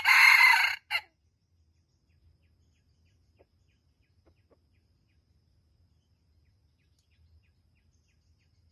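Red junglefowl rooster crowing: the end of one crow, which stops about a second in after a short last note.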